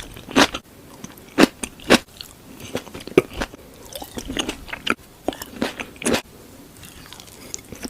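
Close-miked eating: crunchy bites and chewing, with irregular sharp crunches about once a second that thin out near the end.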